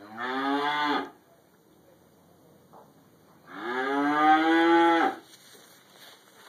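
A cow mooing twice: a short moo right at the start, then a longer, louder moo a few seconds later. Each call rises in pitch at its onset and then holds.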